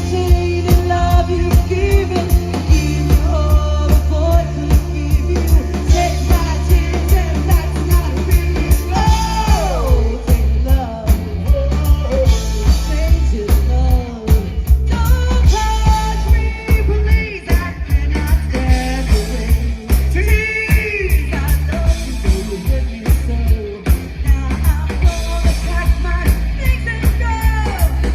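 Upbeat rock song with a lead singer over a steady drum beat and a heavy bass line.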